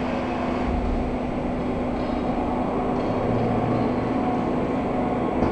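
1999 Mazak FJV 250 CNC vertical machining center running, giving a steady mechanical hum with one constant tone over an even whir.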